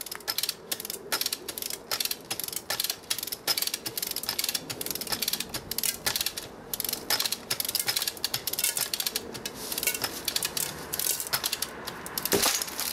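Ratchet lever hoist being cranked, its pawl clicking in quick uneven runs as it tensions a webbing sling under a load of around a tonne. About twelve seconds in comes one louder, sharper crack, the webbing snapping under the load.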